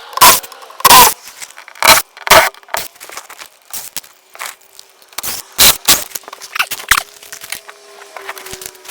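Rapid, irregular sharp knocks and cracks of wood being worked during door framing, the loudest in the first second and again about five to six seconds in. A faint steady tone joins about seven seconds in.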